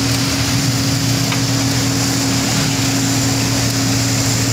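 Wirtgen W1000F cold milling machine at work, its diesel engine running with a steady hum under the even noise of the drum milling asphalt and the conveyor carrying the millings into a dump truck.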